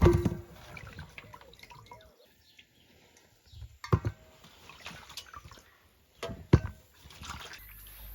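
Water splashing and dripping, broken by three sharp knocks or clinks: one at the start, one about four seconds in, and one about six and a half seconds in.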